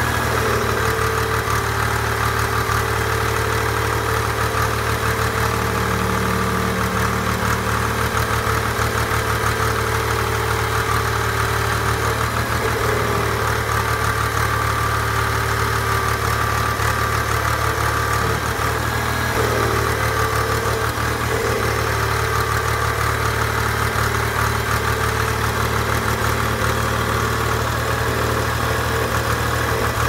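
John Deere 300B loader backhoe's diesel engine running steadily at idle, driving its newly rebuilt radial hydraulic pump. A steady higher tone sits over the low engine sound and shifts slightly a few times.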